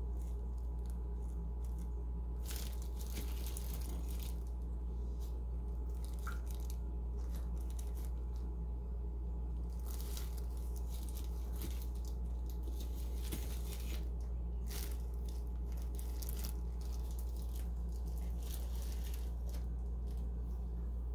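Thin plastic glove crinkling and gloved fingers rustling in potting soil, in several short bouts, over a steady low hum.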